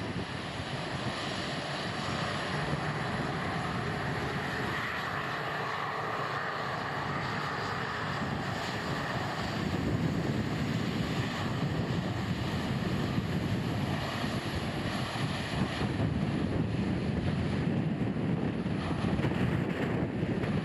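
Jet airliner engines running during a takeoff, a steady roar mixed with gusty typhoon wind buffeting the microphone; the low rumble grows a little stronger about halfway through.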